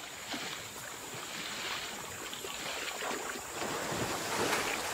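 Elephants wading through a river, the water splashing and surging around their legs and bodies, growing louder near the end.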